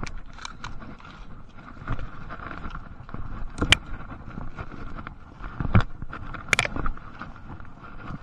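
Footsteps and rustling through forest undergrowth, with irregular knocks and snaps of twigs and leaves close by, the loudest about three seconds, six seconds and six and a half seconds in. A steady high insect hum runs underneath.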